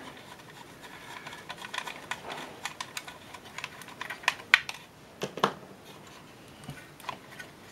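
Fingers working at a circuit board in a metal instrument chassis to lift it out: scattered light clicks and scrapes, with a few sharper clicks a little past halfway.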